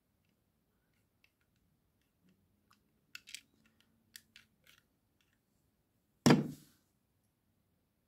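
Light plastic clicks of LEGO bricks being slid and pulled apart in the hands, a handful between about three and five seconds in, then a single much louder knock with a short ring-out a little after six seconds.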